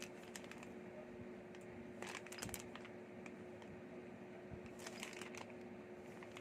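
Faint rustling and small clicks of kit parts and packaging being handled, in two short clusters about two and five seconds in, over a steady low hum.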